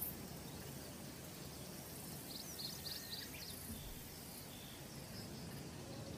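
Faint, steady outdoor background noise, with a quick run of five or so high chirps about two and a half seconds in.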